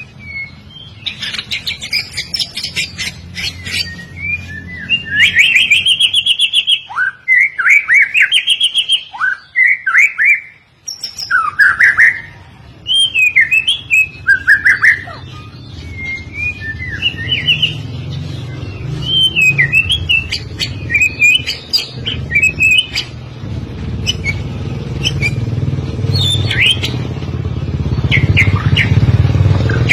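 White-rumped shama singing a long, varied song of loud whistled phrases, slurred notes and rapid trills. A low rumble like an engine builds underneath in the second half.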